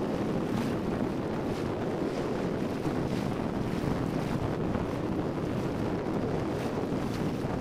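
Steady wind buffeting the microphone over the rush of choppy water, with small splashes and slaps of waves against a hull.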